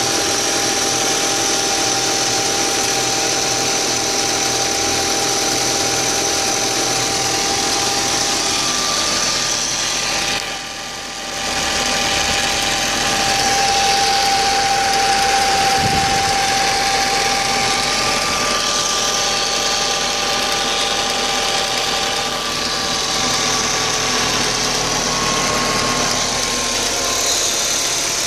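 Audi A4 B6 1.8T turbocharged four-cylinder engine idling roughly, a fault that appeared after a new water pump and timing belt were fitted. The level dips briefly about ten seconds in.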